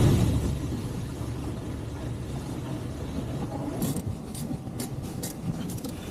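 Car running with a steady low rumble that starts abruptly and loud, then settles. A handful of sharp clicks or knocks come about four to five and a half seconds in.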